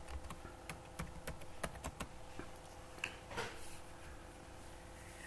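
Typing on a computer keyboard: a quick run of separate key clicks as a password is entered at a login prompt.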